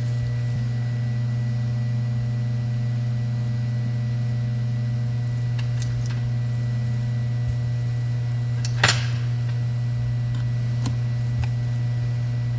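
A steady low electrical hum, with a single sharp clack of something hard set down or knocked about nine seconds in.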